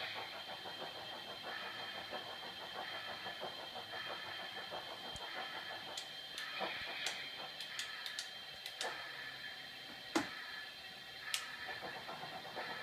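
Sound-equipped model steam locomotive chuffing at a slow, even beat, about one soft hissy chuff every 0.8 seconds, over a steady high whine. Scattered sharp clicks come through the second half, the loudest about ten seconds in.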